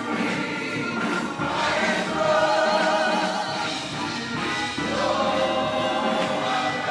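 Gospel choir singing a worship song in full voice, with the singers clapping along.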